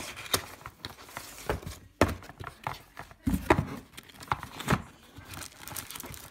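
Cardboard shipping box and its paper packing being handled and rummaged through: irregular rustling, scraping and knocks, with a few louder thumps.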